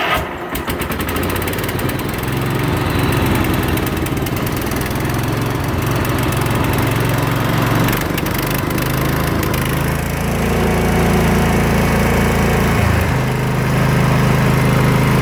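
Huxley Little David stump grinder's small petrol engine running just after a cold start on a little choke, somewhat uneven at first. About ten seconds in its note shifts, and near the end it settles into a steadier run.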